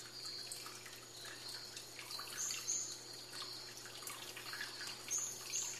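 Faint high-pitched chirps in quick runs of three or four notes, the runs about three seconds apart, over light dripping and trickling water.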